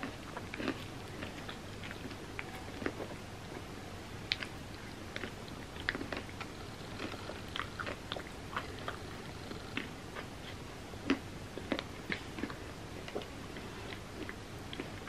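Close-miked eating sounds: a person chewing mouthfuls of ice cream sundae, with many short, irregular mouth clicks.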